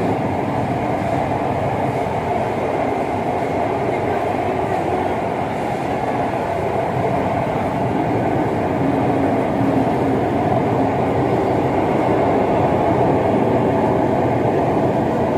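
Mumbai Metro train running, heard from inside the carriage as a steady, even noise.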